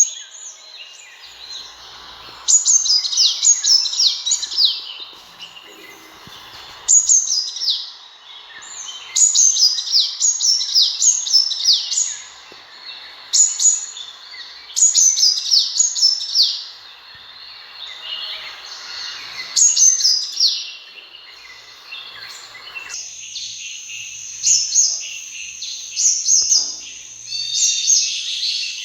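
Sunbird song: bursts of quick, high, down-slurred chirps, each burst a second or two long and repeating every few seconds. About two-thirds of the way through, the song changes to a denser, more continuous high twittering.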